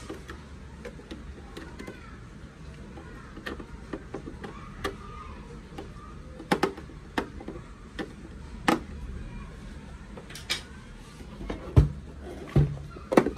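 Hand screwdriver working a small screw in the plastic base of a toy oven, with scattered sharp clicks and plastic knocks as the toy is handled. A few heavier thuds near the end as the hollow plastic oven is turned over and set down.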